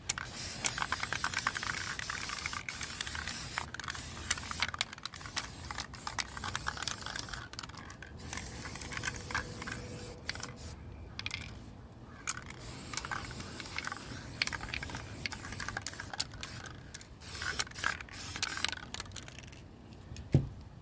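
Aerosol can of Watco crystal-clear lacquer spraying a protective coat, hissing in several long bursts separated by short pauses.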